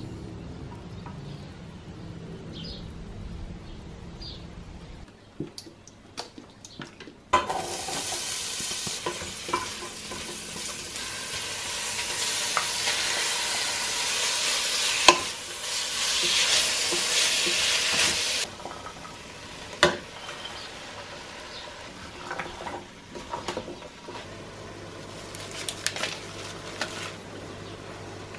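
Bacon frying in a stainless steel pot: a loud sizzle that starts suddenly with a clatter and runs about ten seconds, with a few sharp clanks of pot and lid. After it come quieter scattered clicks and scrapes of a wooden spoon stirring a pot.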